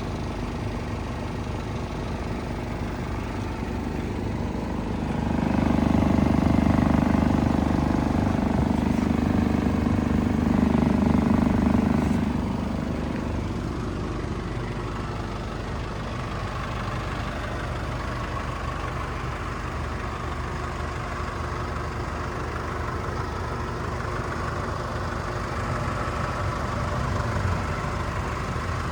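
Chevrolet S10 pickup running steadily, with a louder, deeper hum from about five to twelve seconds in.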